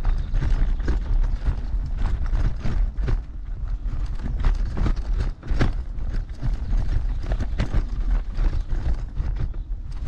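Heavy RS New Vision electric scooter jolting over a rough, bumpy forest dirt road. Its frame and parts rattle and knock irregularly, many times a second, over a steady low rumble.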